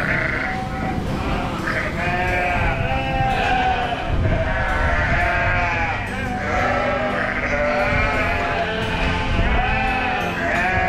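A flock of sheep, ewes and lambs, bleating loudly over one another almost without pause, as the lambs are chased away from their mothers to be weaned.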